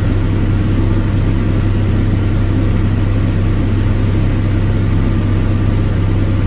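Tractor engine running steadily under load while pulling a hay baler, a constant low hum with no change in speed.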